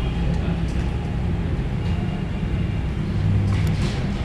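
Steady low rumble of room background noise, with a couple of faint clicks near the end.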